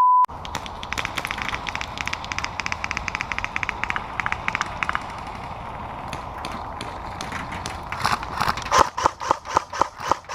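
Airsoft guns firing: a rapid run of clicking shots for about the first five seconds, then near the end a louder series of regular knocks, about four a second.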